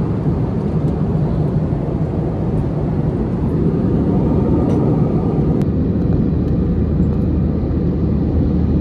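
Jet airliner in flight heard from inside the cabin: the steady rumble of the engines and rushing air, with a low hum that becomes steadier about halfway through.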